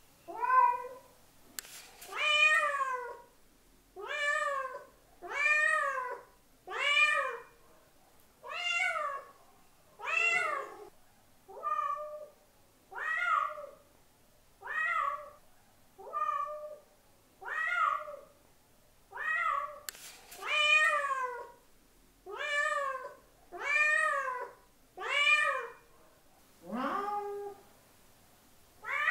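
A domestic cat meowing over and over, about one meow every second and a half, each meow rising and then falling in pitch.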